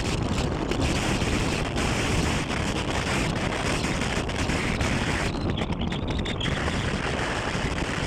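Wind buffeting the microphone of a camera riding in a moving vehicle, over steady road noise.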